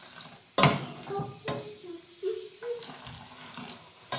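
A steel ladle knocking against the rim of a stainless steel pot a few times as milky Kashmiri pink tea is lifted and poured back into the pot, aerating it, with the splash of the pouring tea between the knocks.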